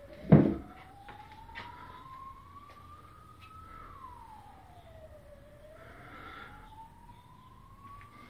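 A siren wailing in slow rising and falling sweeps, each rise taking about three and a half seconds and each fall about a second and a half. A single loud thump shortly after the start is the loudest sound.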